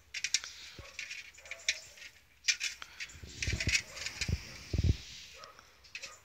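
Beagles' claws clicking and scraping on a glass tabletop as they paw at it, scattered light taps and rattles with a couple of dull thumps about three and a half and five seconds in.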